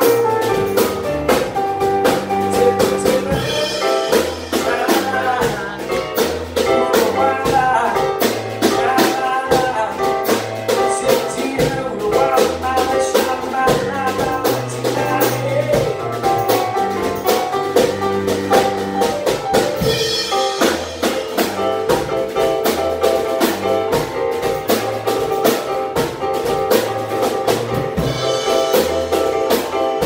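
Live band playing a New Orleans rhythm-and-blues piano tune: a Casio Privia digital piano over a drum kit keeping a steady beat.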